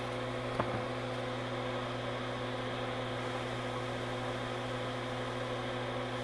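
Steady electrical hum and whir from a bench device left running, with a single short click about half a second in.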